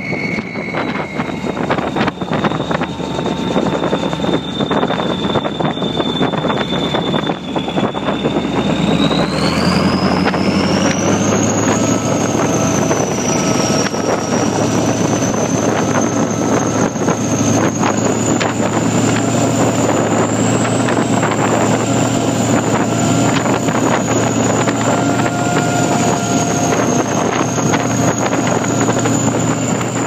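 Vehicle engine running with a steady low drone and a thin high whine; about nine seconds in the whine climbs in pitch and the engine grows a little louder.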